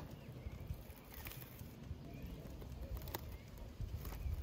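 Plastic cling film crinkling, with a few sharp crackles, as it is rolled and twisted tight around a log of beef and filling. Faint bird chirps behind it.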